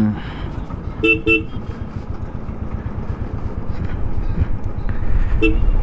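A vehicle horn gives two short toots about a second in and one more near the end, over the steady running of a Royal Enfield Classic 500's single-cylinder engine as the motorcycle rides along.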